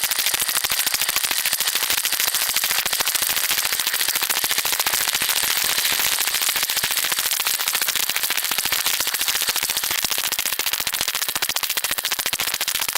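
Dishwasher water jets spraying hard onto and around a GoPro in its waterproof housing during the wash cycle: a loud, steady, dense spatter of rapid drumming hits, close up against the camera case.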